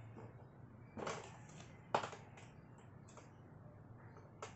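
A Brompton folding bike clicking and clacking as it is handled, with a few separate short knocks and the sharpest click about two seconds in.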